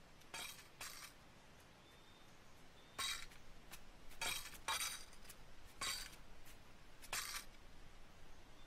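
Short metallic jingling clinks, seven in all at irregular spacing, from a walking monk's staff striking the ground as he goes.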